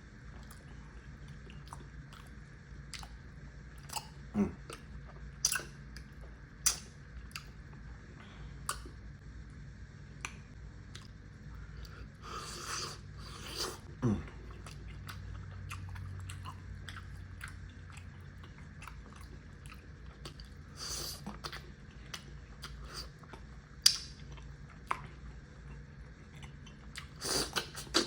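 Close-miked chewing and mouth smacking of a person eating, with scattered sharp clicks and a few louder smacks through the stretch.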